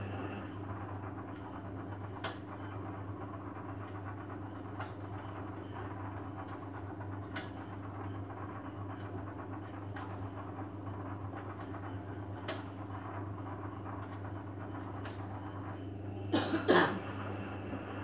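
Beko Eco Care WMA 1510 front-loading washing machine running a wash, its drum tumbling the load: a steady motor hum with a light knock about every two and a half seconds. A short, much louder burst of thumps comes near the end.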